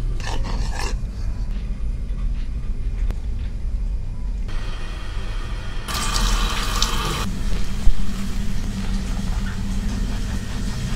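Water from a handheld shower head spraying onto long wet hair over a salon shampoo basin. It starts about halfway through, is strongest for about a second and cuts off suddenly, over a steady low hum. A single short thump follows soon after.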